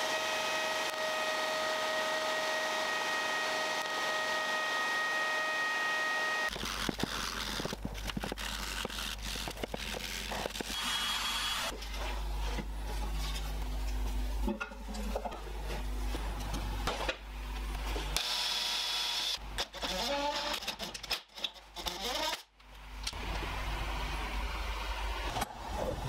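Small high-speed rotary tool with a sanding drum running steadily with a high whine, which stops abruptly about six seconds in. Irregular rubbing, clicks and knocks from hand work on the wooden piece follow over a low hum.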